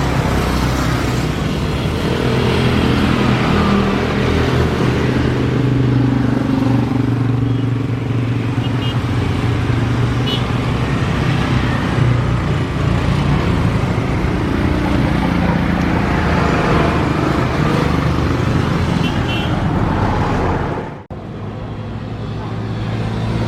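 Road traffic running steadily, with car and motorcycle engines and tyre noise. The sound drops out abruptly for a moment about 21 seconds in.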